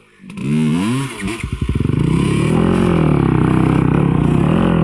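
Off-road motorcycle engine revving in a few quick blips, then held at high revs with the pitch wavering up and down as the rider works the throttle on a rocky hill climb.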